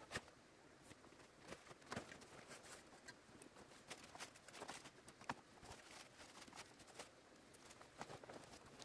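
Faint, scattered clicks and rustles of a hiking backpack being packed: a plastic-wrapped bundle is pressed onto the pack and its straps are handled.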